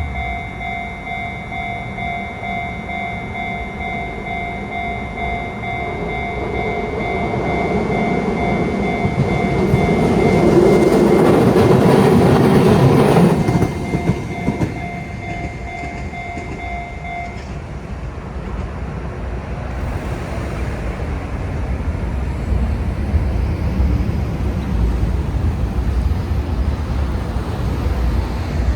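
Japanese level-crossing alarm ringing steadily while a Chikuho Electric Railway train passes over the crossing; the train's running noise swells, is loudest for a few seconds, then drops away. The alarm stops a little past halfway, and the rumble of rail traffic rises again toward the end.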